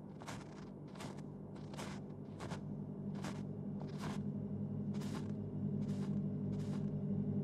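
Boots crunching through snow in a slow walk, about one step a second, the steps getting fainter and stopping near the end. A low steady drone swells in underneath from about two and a half seconds in and keeps growing louder.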